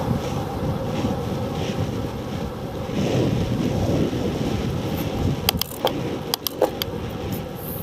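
Wind buffeting the microphone of a small camera mounted on moving bicycle handlebars, over a steady rumble from the road. About five and a half seconds in comes a quick run of sharp clicks.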